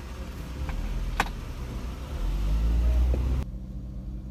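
Car pulling away and accelerating, heard from inside the cabin: a low engine rumble builds over about three seconds, with one sharp click about a second in. Near the end it cuts abruptly to a quieter, steady cabin drone of the car cruising.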